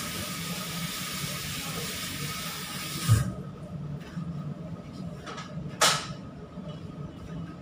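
Plastic cling film pulled off its roll with a steady tearing hiss for about three seconds, ending in a thump. A short, sharp crinkle of the film comes near the end.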